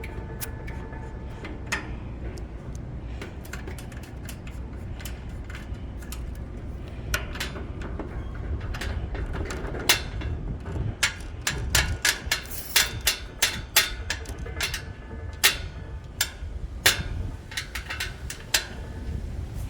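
Irregular sharp clicks and knocks, a few at first and then many in quick succession through the second half, over a steady low hum.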